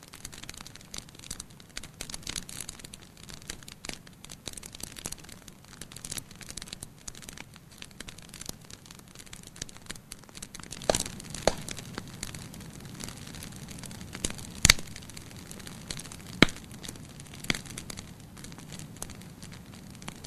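Fire burning in a fireplace, crackling steadily with many small snaps. A handful of louder pops come in the second half, the loudest about two-thirds of the way through.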